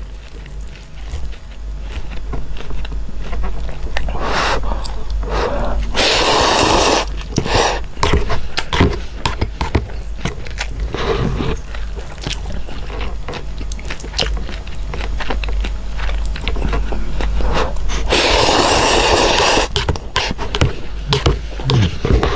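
A person slurping instant noodles, two long slurps of about a second each, about a third of the way in and again past the middle. Between them come chewing sounds and small clicks of chopsticks against the paper cup, over a steady low hum.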